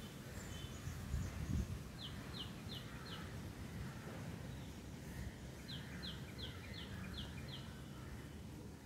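A bird calling in two runs of short, quick, falling chirps, about three a second: four, then after a pause six more. Under it runs a steady low rumble, with a brief low thump about a second and a half in.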